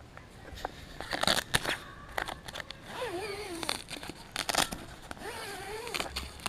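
Tent fabric crinkling and rustling, with sharp clicks and scrapes, as the tent is handled to go inside. Twice, near the middle and again near the end, a short wavering pitched sound rises and falls.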